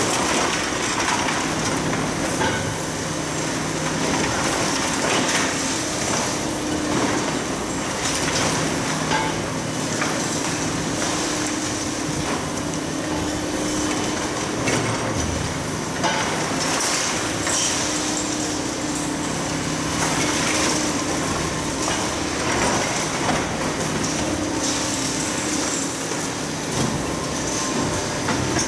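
Hydraulic demolition excavators, among them a Kobelco long-reach machine, breaking up a reinforced-concrete building: diesel engines run with a hum that rises and falls with load, over repeated knocking, cracking and clattering of broken concrete and rubble.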